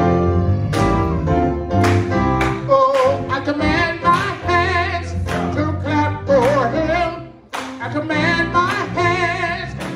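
Gospel singing by a small group of women's voices over instrumental accompaniment with a steady bass line. The music dips briefly about seven and a half seconds in, then carries on.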